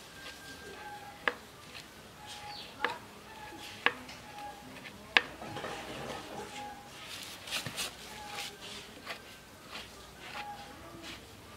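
Screwdriver turning screws in a rusted electric motor's metal casing: four sharp metallic clicks in the first half, then light scraping and rattling of metal.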